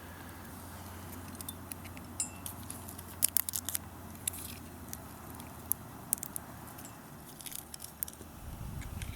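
Scattered light clicks and taps from a pocket knife and small camp gear being handled, the sharpest a little past three seconds in, over a low steady hum.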